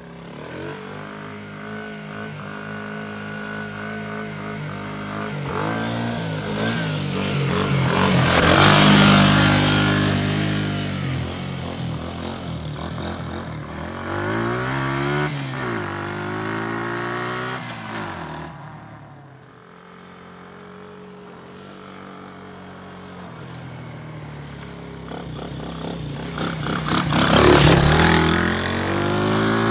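KXD 125 cc ATV's single-cylinder four-stroke engine revving and pulling through its gears as the quad drives by, its pitch rising and dropping with throttle and gear changes. It is loudest as it passes close, about nine seconds in and again near the end.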